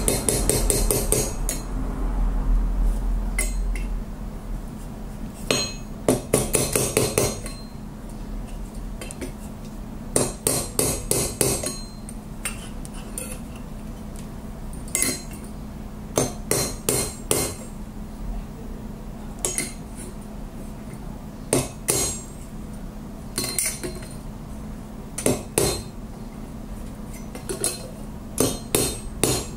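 A hand hammer strikes a square-bar steel trivet frame held on an anvil. The blows come as sharp metallic hits in short runs of several quick strikes, about a dozen runs with pauses of a second or more between them.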